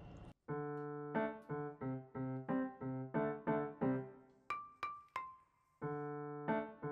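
Background music: a light keyboard melody of evenly struck notes, about three a second, with a short break in the middle where three brief higher notes sound.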